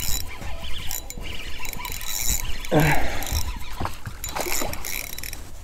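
Spinning reel (Nautilus Arta 2500) ratcheting and clicking under load as a strong hooked trout pulls against an ultralight rod, with a louder rush about three seconds in as the fish splashes at the surface.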